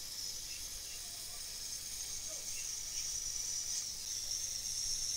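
Hot air rework station blowing, a steady high hiss that grows louder a little under four seconds in.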